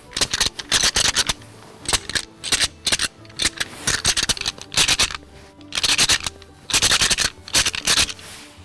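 Deer-rattling: a pair of antlers clashed and ground together in loud, irregular clattering bursts, calling to draw in a blacktail buck. A quiet music bed runs underneath.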